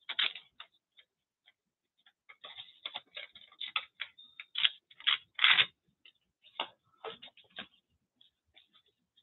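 Crumpled paper crinkling and crackling as it is handled, an irregular run of small crackles that is loudest a little past halfway.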